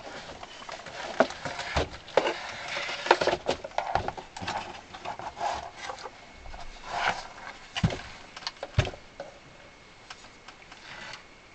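Handling noise as a Hohner Carmen accordion is taken apart: wooden and metal parts knocking and rubbing while a side section is pulled off, with a few louder knocks about two-thirds of the way through. No reed notes sound.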